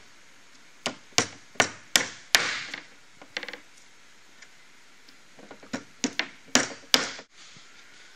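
Hammer tapping a small pin into the plastic end fitting of a tube, setting it home. Sharp taps come in two runs: about five in the first couple of seconds, then a pause and four more near the end.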